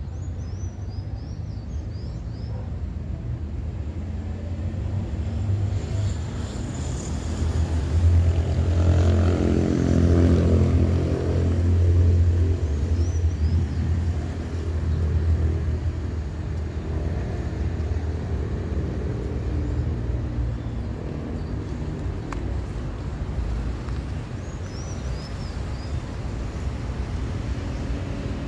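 Outdoor road-traffic rumble, with a heavy road vehicle's engine passing and loudest in the middle, swelling and then fading. A few short bird chirps come near the start, middle and end.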